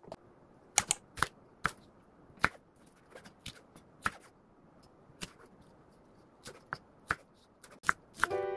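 Kitchen knife slicing a green onion on a wooden cutting board: about fifteen sharp, irregular knocks of the blade hitting the board. Piano music comes in near the end.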